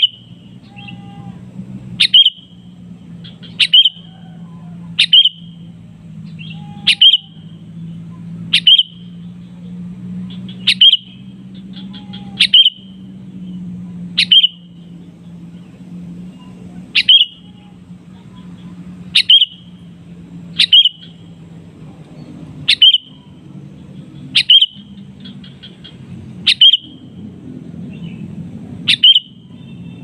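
Male sooty-headed bulbul giving short, sharp calls over and over, about one every one and a half to two seconds: a challenge call to rival bulbuls. A faint low hum runs underneath and fades about two-thirds of the way through.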